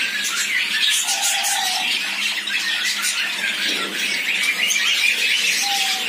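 Many small cage birds, finches and budgerigars, chirping and chattering at once in a dense, continuous twitter, with a few short held notes now and then.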